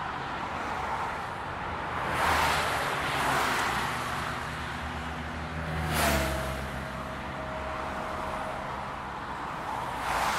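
Jet engine noise from a landing Airbus A340-300's four CFM56 turbofans, swelling and easing as it touches down. About six seconds in there is one sudden sharp crack, followed by a steady whine that fades out a couple of seconds later.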